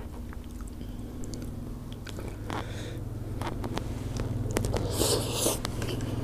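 Close-miked eating sounds: fingers picking at rice and grilled fish with small clicks, then a mouthful chewed wetly, with a louder burst of mouth noise about five seconds in.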